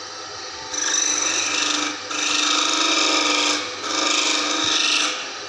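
A metal file is rasped against a thin metal shaft in a workshop rig. There are three strokes of about a second and a half each, with short gaps between them.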